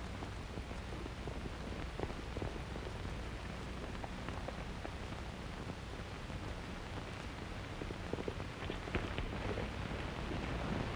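Steady hiss and crackle of an old optical film soundtrack over a low hum, with faint, irregular hoof taps of a horse being ridden over dirt. The taps come a little more often near the end.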